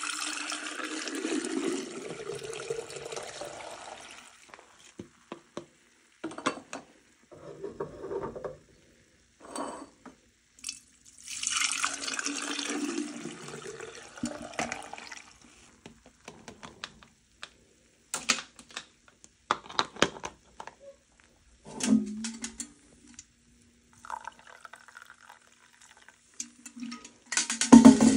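Milk poured through a plastic strainer into a jar, in two long pours: one at the start lasting about four seconds, the other from about 11 to 15 seconds in. Between and after the pours come light clicks and knocks of containers being handled, with louder clunks about 22 seconds in and near the end.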